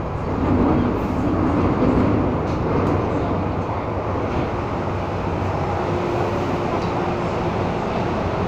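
MTR M-Train electric multiple unit running, heard from inside the car: a steady rumble of wheels on track with a low hum. A steady tone comes in about five seconds in and lasts a couple of seconds.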